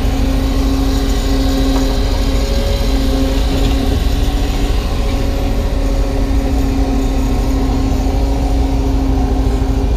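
Kubota U35-3 mini excavator's diesel engine running steadily under working load while digging, with a steady drone and a prominent constant hum.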